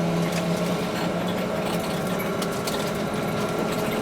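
Trolleybus cabin noise while driving: the steady hum of the electric traction motor with light rattles. The lowest hum fades about a second and a half in.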